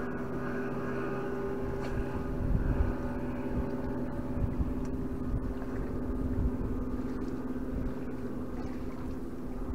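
Boat motor running steadily with an even hum, under a few low rumbles that are loudest about two and a half seconds in.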